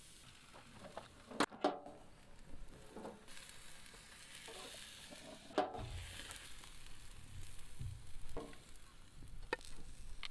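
Marinated steaks sizzling on the hot grate of a small portable barbecue grill, being seared, with several sharp metal clacks of tongs against the grate, the loudest two about a second and a half in.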